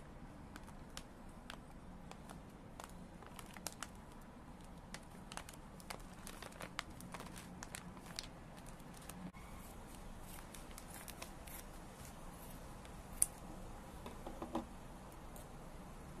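Plastic snack pouch crinkling as it is handled and turned over: irregular small crackles, with one sharper snap about thirteen seconds in.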